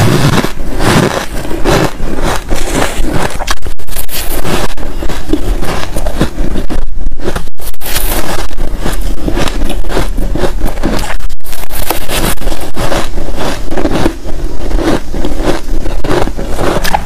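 Loud, close-miked crunching and chewing of soft, snow-like ice eaten by the spoonful: a dense, continuous crackle.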